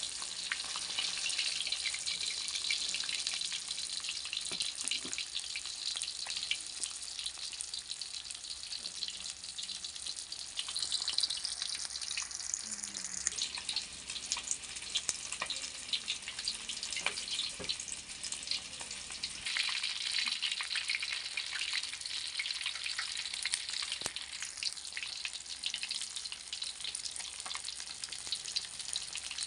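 Red arowana steaks deep-frying in hot oil in a wok: a steady sizzle with frequent sharp crackling pops, swelling for a few seconds about two-thirds of the way in.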